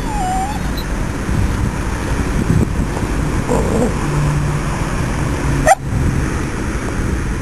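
Steady low rumble of road traffic, with dogs at play: a short dog whine at the start and a sharp high yelp about six seconds in.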